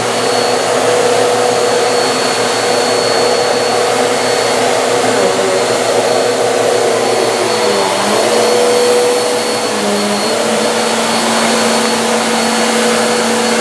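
Vacuum cleaner running steadily. Its motor hum dips briefly in pitch twice, about eight and ten seconds in.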